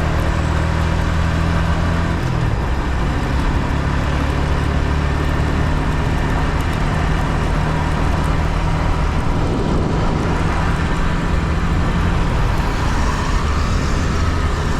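Stock-exhaust Yamaha MT-15's 155 cc single-cylinder engine running steadily while riding. The engine note shifts about two seconds in, and a rising tone comes in near the end.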